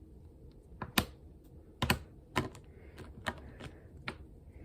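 Small magnets being set down one by one on a hard surface while being counted: a string of sharp, irregular clicks, about seven in all.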